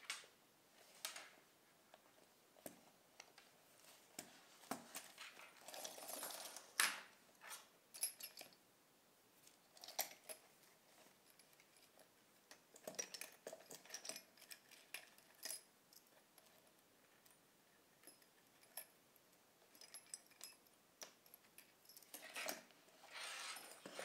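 Small hand tools clinking and rustling in a zippered tool pouch as a hand rummages through it: scattered light metallic clicks and clinks, with longer rustles around six seconds in and again near the end.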